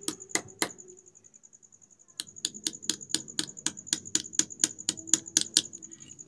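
Small hammer tapping a steel pin into the hub of a sewing machine's bobbin winder: three light, quick taps, a pause of about a second and a half, then a run of about fourteen taps at roughly four a second. A steady high trill runs underneath.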